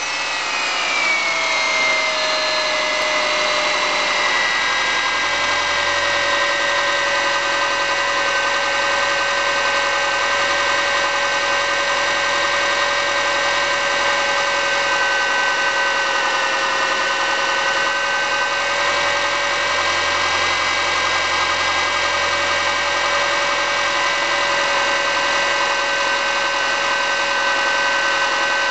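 Subaru EJ25 2.5-litre flat-four engine idling just after start-up, its pitch dropping over the first few seconds as the idle settles, then steady. The owner takes its knocking for piston slap.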